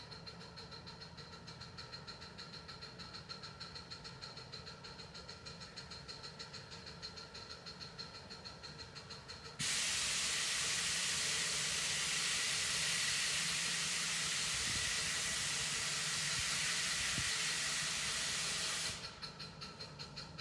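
Miniature steam locomotive in the distance: a faint, regular pulsing, then about ten seconds in a sudden loud, steady hiss of steam being let off, which lasts about nine seconds and stops abruptly, leaving the faint pulsing again.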